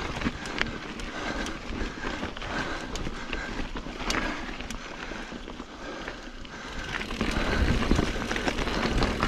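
Norco Sight full-suspension mountain bike ridden over rocky dirt singletrack: tyres rolling on dirt and rock, with many rattles and knocks from the chain and frame over bumps. The rumble grows louder over the last couple of seconds.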